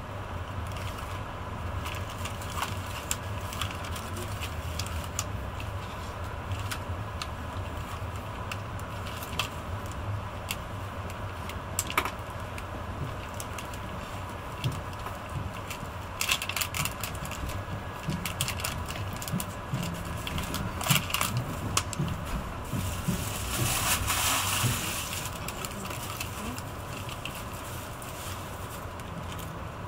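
Inside the cabin of a Renfe AVE S-102 (Talgo 350) high-speed train running on the rails: a steady low rumble with many scattered clicks and rattles, and a louder rushing swell lasting a couple of seconds about three-quarters of the way through.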